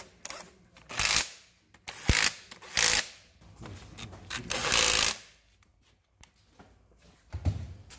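Cordless impact driver running in bolts on an engine block, in four short bursts of rattling hammering, the last and longest about four and a half seconds in.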